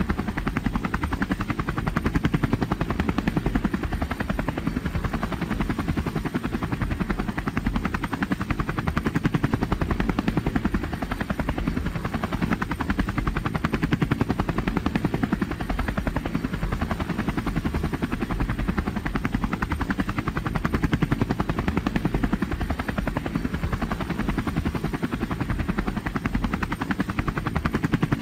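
Robinson R44 helicopter in flight, heard from inside the cabin: a steady fast chop of the rotor blades over the drone of the piston engine. The loudness swells slightly every few seconds.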